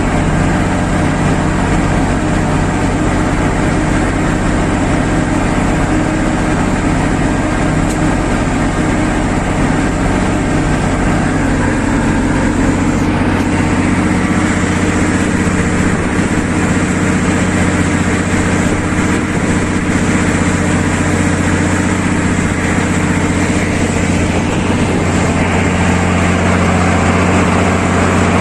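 Farm tractor engine running steadily at a constant pace, with a loud exhaust note.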